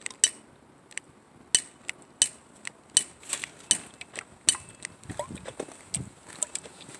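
Footsteps on pavement while walking: a string of sharp, irregular clicks, roughly two a second, some with a light metallic ring.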